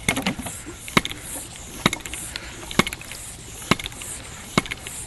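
Bicycle floor pump worked in steady strokes, a sharp click about once a second, pumping air into a 2-liter water rocket to build launch pressure.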